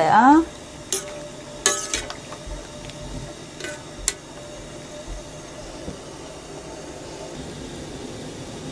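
Metal utensil tapping and scraping against a stainless steel saucepan while stirring hijiki seaweed blanching in hot water, a few sharp clinks in the first half. A steady hiss runs underneath and is all that is left in the second half.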